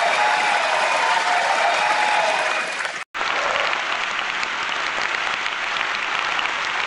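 Applause: many hands clapping in a dense, steady patter. It cuts out abruptly for a split second about three seconds in, then carries on.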